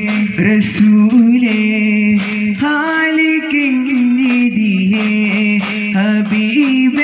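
Daff muttu: a group of male voices sing a devotional song in long, drawn-out, ornamented notes, with daf frame drums struck in rhythm beneath the singing.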